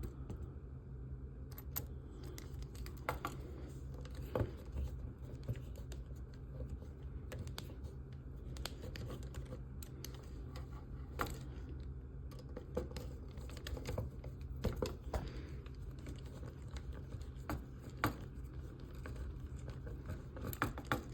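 Scattered small clicks and scrapes as a screwdriver and small metal screws and model parts are handled, while a screw is tried in a hole that will not take it. A steady low hum lies underneath.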